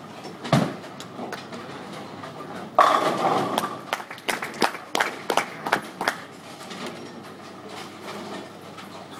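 Ten-pin bowling ball landing on the wooden lane with a knock and rolling. About three seconds in it crashes into the pins, followed by about three seconds of pins clattering.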